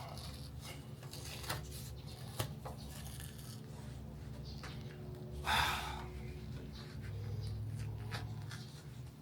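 Quiet hand-work noises from prying off a car trim piece: a few small clicks and taps, and one brief scraping rustle about five and a half seconds in, over a steady low hum.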